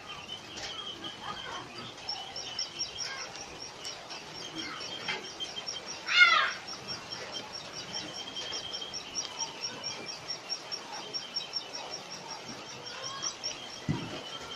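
Birds chirping outdoors: a rapid, even series of high chirps, about five a second, with fainter lower chirps, and one louder warbling call that falls in pitch about six seconds in. A short low thump near the end.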